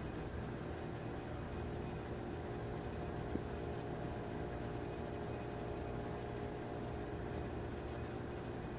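Steady mechanical hum with a hiss, unchanging throughout, with one faint click about three and a half seconds in.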